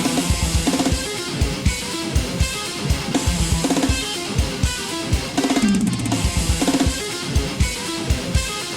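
Instrumental band music: a drum kit with a steady kick drum under electric guitar notes, with a falling slide on the guitar or bass near the middle.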